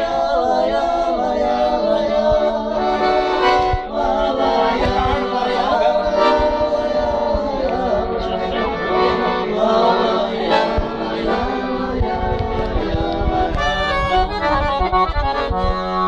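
Piano accordion playing a lively gaúcho folk melody, with chords held under the tune and the bass notes pulsing.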